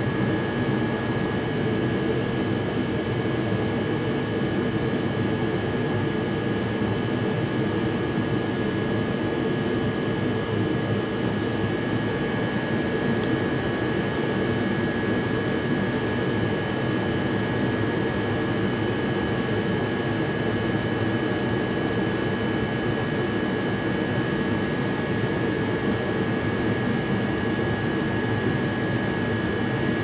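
A steady machine drone with a thin, constant high whine above it, unchanging throughout.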